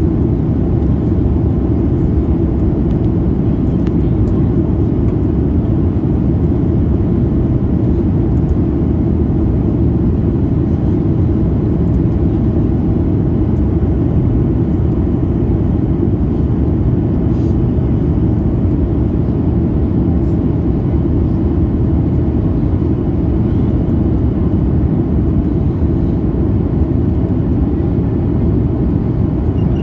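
Cabin noise of a Boeing 737 MAX 8 in descent: the CFM LEAP-1B engines and the airflow over the fuselage heard from a passenger seat as a steady, deep rush that does not change.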